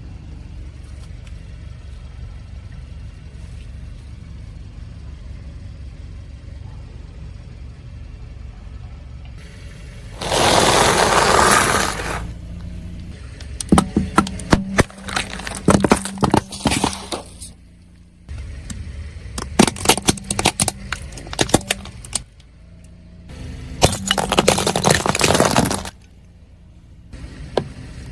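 A car's engine and tyres rumble low and steady, then the tyres roll over crunchy objects. About ten seconds in come a loud spell of crunching and several runs of rapid cracking and breaking, with short pauses between.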